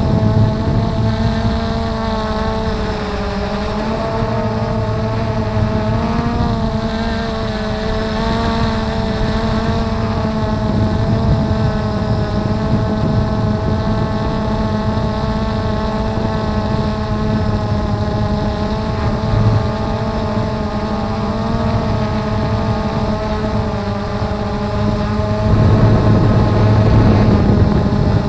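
Blade 350 QX2 quadcopter's four brushless motors and propellers whirring steadily in flight, heard from the camera on board, their pitch wavering slightly as the motors adjust. About 25 seconds in, a louder low rushing noise comes up under the whir.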